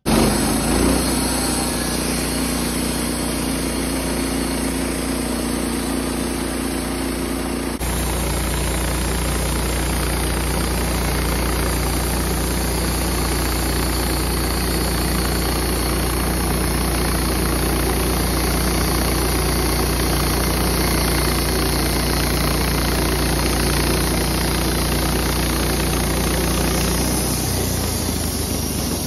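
Woodmizer LT15 bandsaw mill running steadily under load as its blade saws a face off a sugar pine log. The sound jumps abruptly about eight seconds in, and the low engine note changes shortly before the end.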